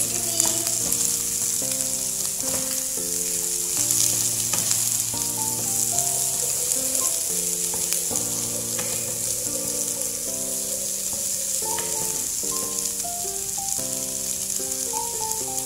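Green beans and egg sizzling steadily in a non-stick wok as they are stir-fried with a wooden spatula. Background music plays over it, with held notes that change every second or so.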